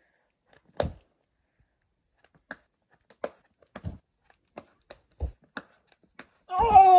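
Scattered sharp taps and scuffs of a climber's hands and shoes on the boulder's rock as he works through the moves. Near the end comes a loud yell, falling in pitch, as he comes off the problem.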